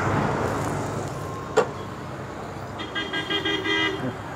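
Street traffic noise with a vehicle horn sounding for about a second near the end, and a single sharp click about one and a half seconds in.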